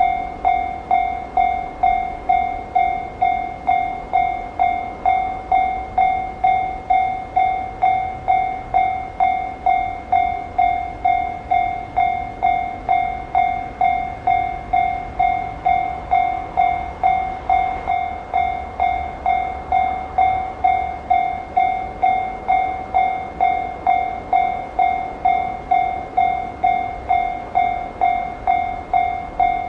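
Japanese railway level-crossing warning alarm ringing its steady 'kan-kan' dings, a little under two a second, over a low rumble.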